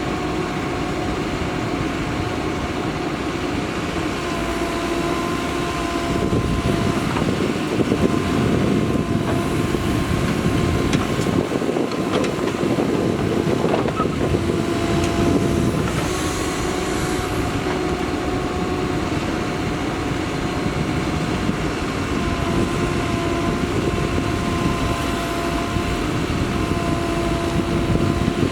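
Mahindra Earthmaster SX backhoe loader's diesel engine running with a steady whine. It grows louder about six seconds in and settles back about sixteen seconds in.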